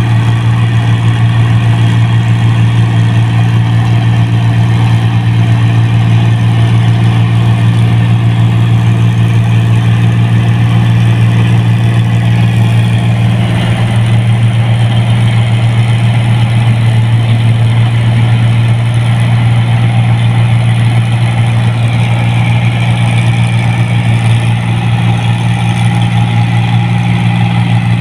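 New Holland 1545 combine harvester running steadily as it cuts standing rice: a loud, even, low engine drone that shifts slightly about halfway through.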